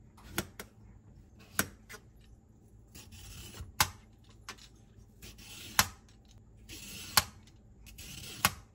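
Y-peeler shaving long ribbons off a cucumber over a stainless steel tray: repeated short scraping strokes, each ending in a sharp click, about six in all.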